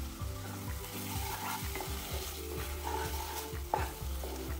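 Thick tomato-onion masala sizzling in a kadhai while a spatula stirs it and scrapes the pan, with one sharper scrape near the end. The masala is frying on medium flame and is close to the point where the oil starts to separate.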